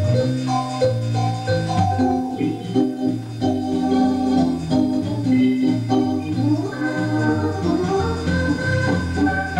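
Wersi Helios electronic home organ played live in an improvisation: held bass notes and sustained chords with a melody line moving over them.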